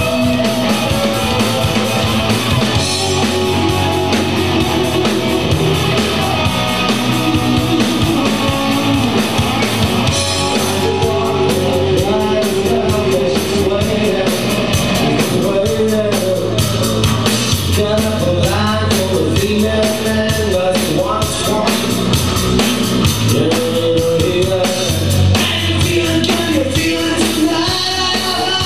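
A hard rock band playing live and loud, with distorted electric guitars, bass and drums, and a singer's voice over the band. The drums and cymbals grow busier about ten seconds in.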